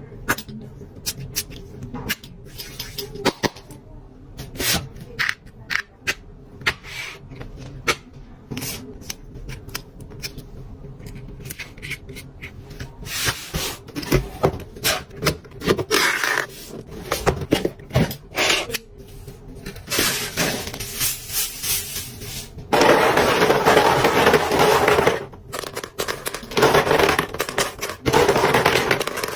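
Unboxing sounds of a gift box: scattered taps and clicks as packaging and small items are handled, then a long stretch of continuous rustling and crinkling of wrapping, starting a little over two-thirds of the way in.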